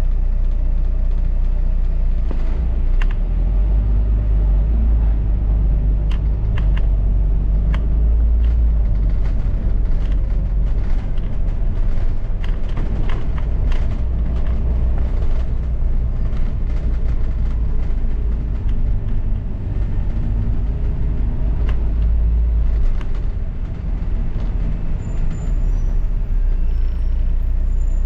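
Double-decker bus heard from on board while it drives: a steady low engine and road rumble with frequent rattles and clicks from the body and fittings. The rumble eases for a moment about two-thirds of the way through.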